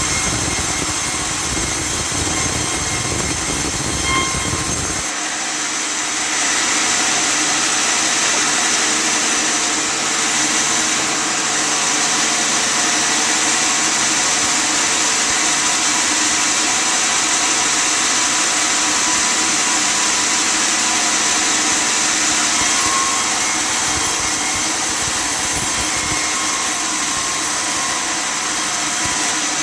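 Custom-built table sawmill running steadily, a continuous machine noise of motor and saw. About five seconds in the low rumble drops away and a steady hiss carries on.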